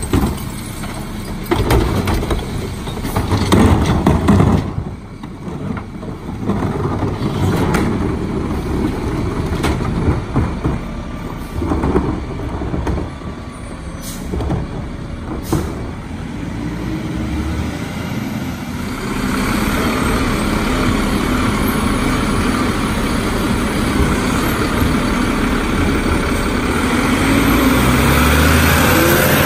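Mack MRU rear-load garbage truck with a Heil Formula 5000 body at work: a run of knocks and bangs as wheeled carts are tipped into the hopper. The truck's engine then runs steadily and louder through the last ten seconds.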